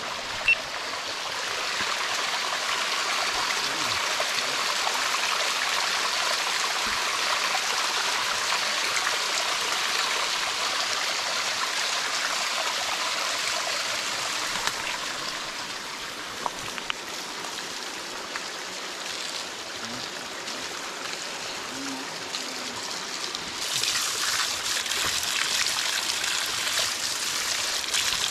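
Water running and splashing over rocks in a small mountain stream, with a jet from a plastic spring pipe pouring onto the stones. It eases somewhat past the middle and grows louder again near the end.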